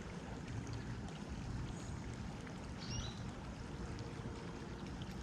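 Steady rush of flowing creek water, with a single short high chirp about three seconds in.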